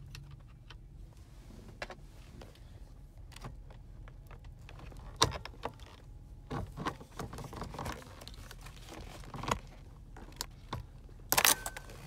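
Scattered clicks, knocks and light rattles of hands handling a steering wheel's metal brackets and plastic connectors, with a sharp knock about five seconds in and a cluster of clatters near the end.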